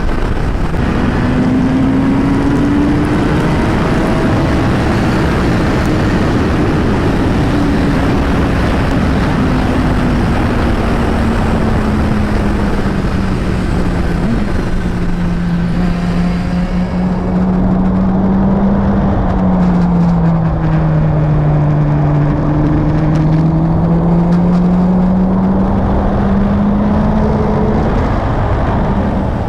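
Kawasaki ZX-10R's inline-four engine through an Akrapovič carbon exhaust, running under way as the bike is ridden. Its pitch rises and falls gently with speed, over a steady rush of wind noise.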